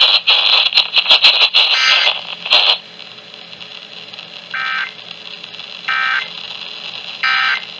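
Emergency Alert System end-of-message signal: three short, buzzy digital data bursts about a second apart, sounding in the second half after a few seconds of loud, scratchy crackling noise over the broadcast audio.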